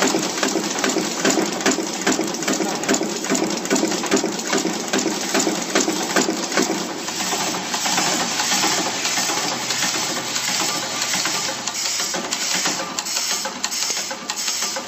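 Automatic LED insertion machine running, its head pressing through-hole LEDs into a circuit board in a rapid, even run of mechanical clicks over a steady machine hum.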